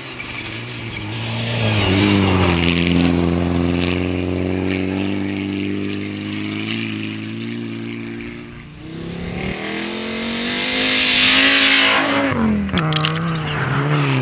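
Mitsubishi Lancer Evolution rally cars' turbocharged four-cylinder engines at full throttle. One car holds high revs and fades away. About halfway through a second car comes up, its revs climbing with a loud rushing hiss, then dropping sharply near the end as it passes close.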